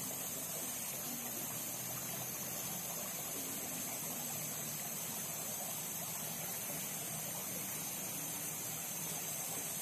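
Steady outdoor ambience of river water running, an even rush without distinct events, with a constant high-pitched whine above it.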